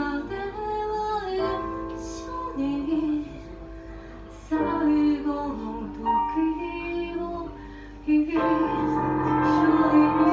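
A song: a female voice singing melodic phrases over instrumental backing, with a fuller, louder passage coming in about eight seconds in.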